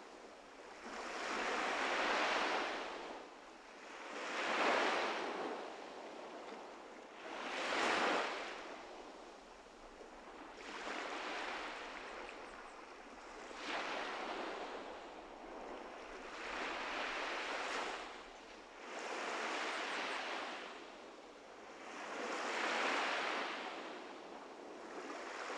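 Sea waves washing in, swelling and fading in even surges about every three seconds.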